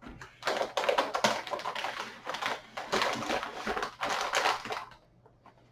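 Packaging rustling and crackling as it is pulled aside to get at a graphics card in its box, a dense run of small clicks that stops about five seconds in.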